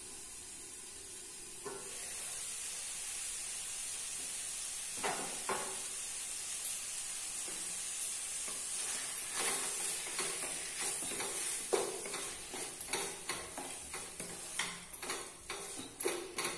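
Chicken sizzling in a kadhai once the lid comes off, about two seconds in, with a few metal clinks around five seconds. From about eight seconds on, a wooden spatula stirs and scrapes the chicken against the pan in quick knocks.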